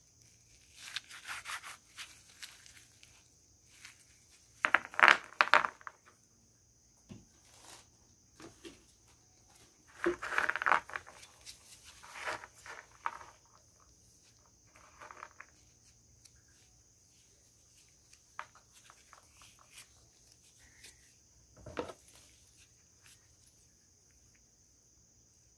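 Gloved hands rubbing and shuffling a handful of chalky heart-shaped mothballs, making short gritty scraping bursts, the loudest about five seconds in and again about ten seconds in.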